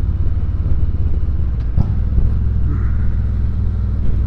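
Harley-Davidson Street Glide Special's Milwaukee-Eight V-twin running at a steady cruise through aftermarket pipes, with a single short knock about two seconds in.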